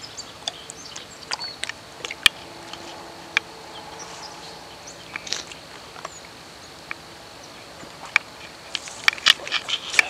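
Quiet outdoor ambience with scattered small clicks and knocks from a handheld camera being moved about, coming thicker near the end, over a faint steady high tone.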